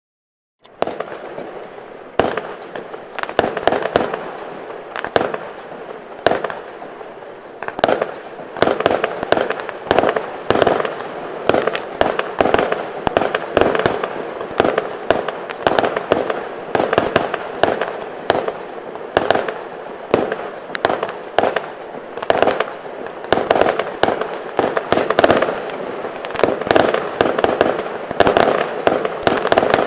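Fireworks display: a dense run of sharp bangs over constant crackling, several reports a second. It starts abruptly about a second in.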